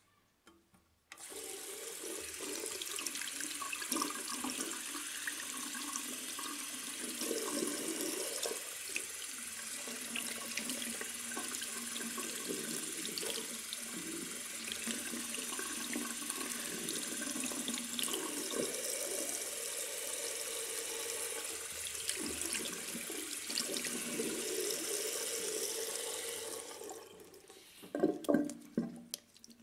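Bathroom sink faucet running, the stream splashing over a wrist and smartwatch into the basin; it starts suddenly about a second in, runs steadily, and stops near the end, followed by a few short wet handling sounds.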